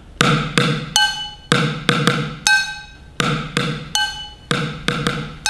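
Chopsticks drumming a simple groove on upturned kitchen containers: dull low hits mixed with higher strikes that ring with a clear tone. The same short pattern plays twice, about a dozen strikes in all.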